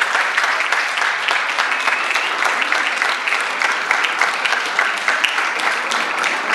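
An audience clapping steadily, a dense applause of many hands.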